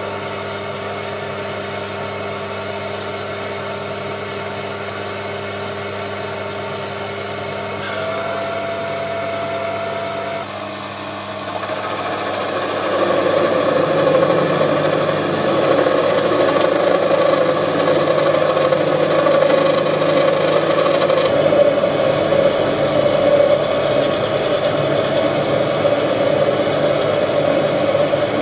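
Proxxon PD 250/E mini lathe running with a steady motor whine. Its note shifts about eight seconds in, and from about thirteen seconds it grows louder and rougher.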